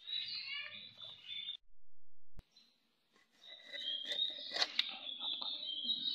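Birds chirping, broken by a short quiet gap, with a few sharp knocks of the knife against the wooden cutting board near the middle as a dressed chicken is cut.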